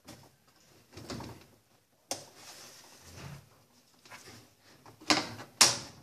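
Hard clicks and knocks from the top ring of a top-loading washing machine's basket being pressed around and its catches snapped into place. There is one sharp click about two seconds in and two loud knocks half a second apart near the end.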